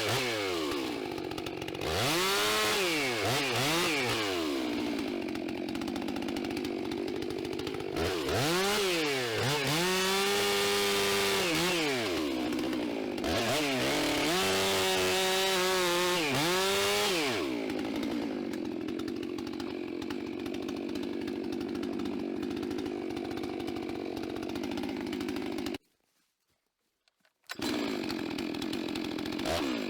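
Chainsaw engine revved up to full throttle three times, a few seconds each, and dropping back to a steady idle in between. The sound drops out abruptly for about a second and a half near the end, then resumes.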